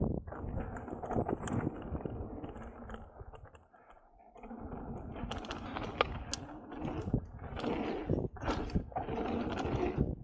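Mountain bike descending a dirt trail: tyres rolling over loose dirt and gravel, with the bike's parts rattling and knocking over the bumps. It goes briefly quieter near the middle, then the clatter picks up again with several sharp knocks.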